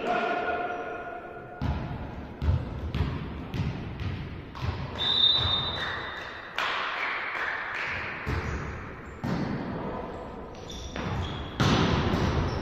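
Volleyball play in a sports hall: the ball is struck and lands again and again, with sharp hits and thuds echoing in the room, a couple of high squeaks, and players calling out.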